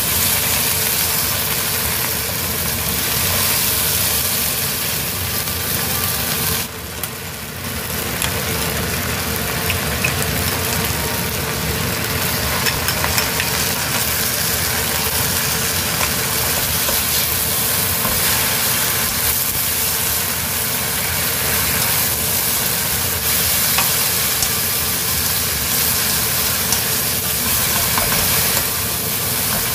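Water spinach stir-frying in a hot pan: steady sizzling with the rustle and scrape of a wooden spatula tossing the greens. The sizzle drops briefly about seven seconds in.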